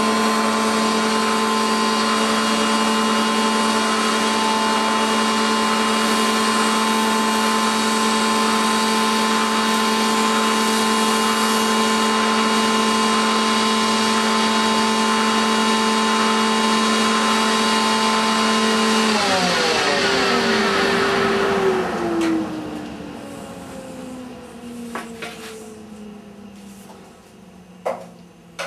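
Thicknesser (surface planer) running at a steady high whine while a long board is fed through it. About 19 seconds in it is switched off and winds down, its pitch falling slowly, with a few light clicks near the end.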